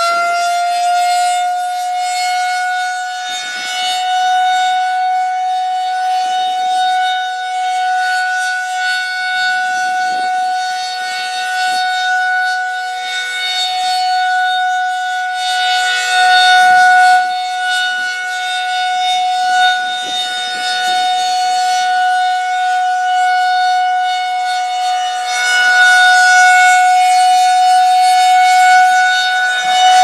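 Federal Signal 2001-SRN rotating tornado siren sounding its steady Alert tone. It reaches full pitch right at the start, then holds one steady wail that swells and fades in loudness as the horn rotates.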